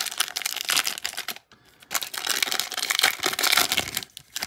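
Pokémon booster pack's foil wrapper crinkling as it is torn open by hand, in two stretches with a short pause about a second and a half in.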